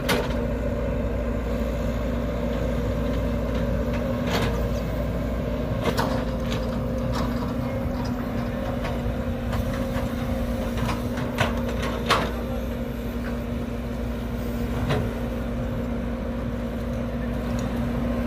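Sumitomo S265 hydraulic excavator's diesel engine running steadily as it digs wet mud from a ditch, with a few sharp clanks from the bucket and boom.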